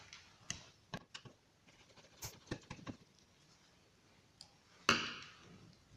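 Small scattered clicks and taps of a screwdriver working the ignition coil lead screws on a Honda distributor. Just before five seconds in comes a louder clink, a small screw dropped onto the wooden table, which fades out quickly.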